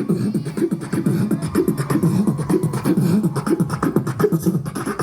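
Human beatboxing: fast rhythmic clicks and snare-like hits over a low hummed bass line, stopping abruptly at the very end.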